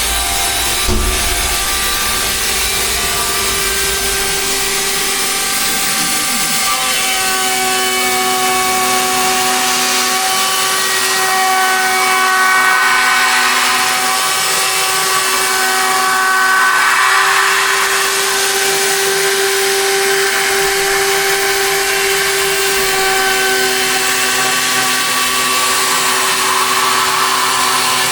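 TechCNC AP4060 benchtop CNC machine milling aluminum: a steady, loud spindle whine of several held tones over a constant hiss of cutting. The tones shift and step slightly as the cut moves, and it gets a little louder about halfway through and again a few seconds later.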